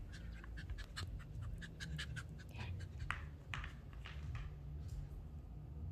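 Shih Tzu puppy panting in quick, short breaths while playing.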